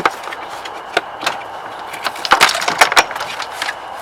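Sharp plastic clicks and knocks as a BMW X3 F25 door trim panel is handled and its wiring connectors are unplugged: a couple of single clicks, then a quick flurry of them past the halfway point.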